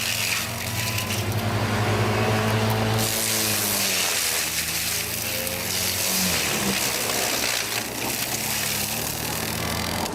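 Heavy forestry machine's engine running under load, its pitch rising and falling, over a rough noisy haze.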